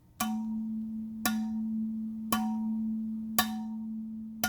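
Genuine Hydro Flask double-wall vacuum-insulated stainless steel bottle struck five times, about once a second, each tap sharp and followed by a sustained low ringing tone that carries on between strikes. This clear, lasting ring is the sound the uploader presents as the mark of an authentic bottle.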